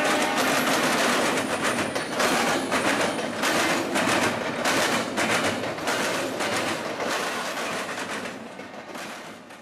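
Norfolk Southern freight train of double-stack container cars rolling past close by, the wheels clattering over the rail joints in quick clicks; the sound dies away near the end.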